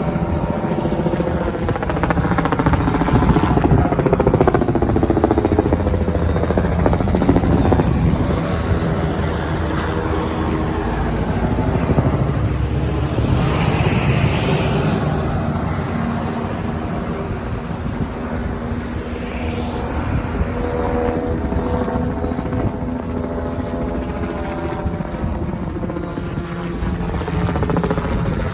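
Police helicopter circling overhead: a steady drone of rotor and engine whose pitch drifts slowly up and down as it circles.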